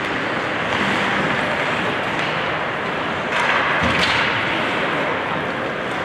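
Ice hockey rink during play: a steady wash of skates scraping on the ice and arena noise, with two sharp knocks a little past three and about four seconds in.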